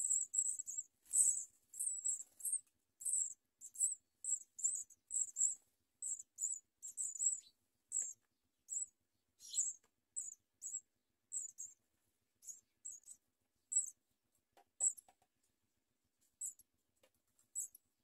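House sparrow nestlings begging: short, very high-pitched cheeps, several a second at first, becoming sparser and more widely spaced in the second half.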